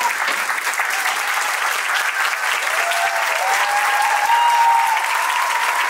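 Theatre audience applauding steadily, with cheering calls rising over the clapping from about halfway through.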